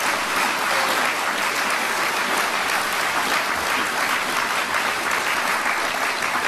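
A large seated audience in a hall applauding, dense and steady clapping.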